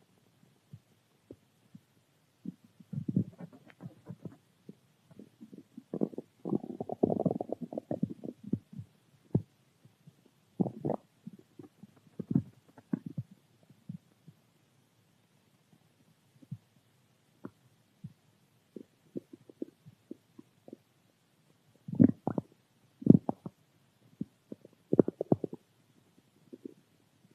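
Hungry stomach growling and gurgling in irregular, low bouts. A longer rolling growl comes about a quarter of the way in, small gurgles are scattered through the middle, and a few sharper, louder growls come near the end.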